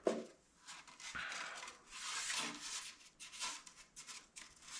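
Irregular scraping and cutting strokes as excess plastic is trimmed by hand from a fiberglass part.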